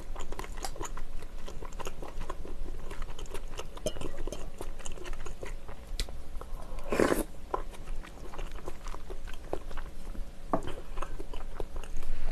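Close-miked eating sounds: wet chewing of smoked egg and tteokbokki in spicy sauce, with many small mouth clicks and smacks and one louder burst about seven seconds in.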